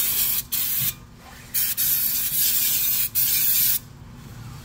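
Brake cleaner spraying in bursts from an aerosol can onto a car's bare front wheel hub. There is about a second of spray with a brief break in it, a short pause, then a longer burst of about two seconds that stops near the end.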